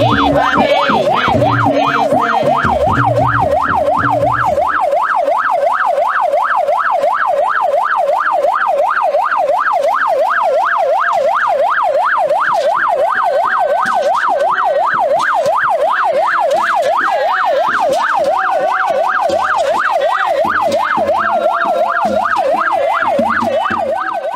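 Electronic vehicle siren in a fast yelp, its pitch sweeping up and down about two to three times a second without a break.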